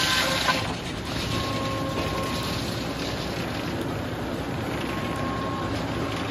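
Large circular sawmill head saw finishing its cut through hard maple: the loud ripping ends about half a second in, with a short sharp knock. The blade then spins free with a steady whirring hum.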